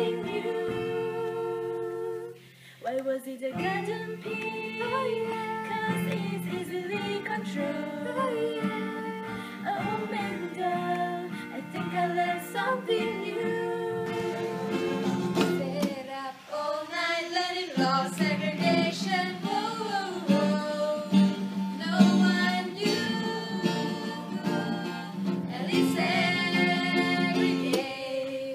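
Young women singing a song together to a played acoustic guitar, with a short break in the music about two and a half seconds in.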